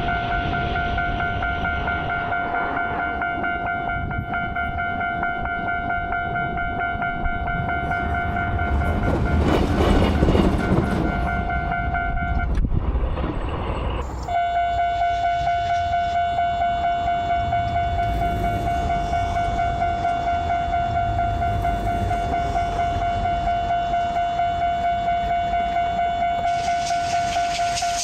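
Japanese railway level crossing warning bell ringing its rhythmic kan-kan, a steady tone pulsing about two to three times a second. A louder rush of train noise passes through about ten seconds in, and the bell drops out briefly a few seconds later before ringing on.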